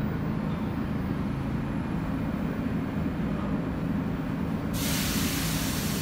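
New York City subway train rumbling steadily on the tracks, then a sudden loud hiss of air that starts near the end.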